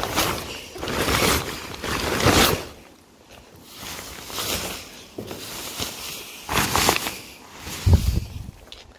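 Synthetic car cover rustling and crinkling in several noisy surges as it is handled and pulled back, with footsteps and a couple of dull thumps in the last few seconds.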